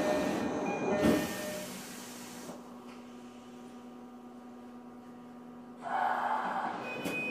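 Interior of a Tokyo Metro 02 series subway car: a loud thud about a second in, then a quieter stretch with a steady low hum, a burst of hissing about six seconds in, and a clunk near the end.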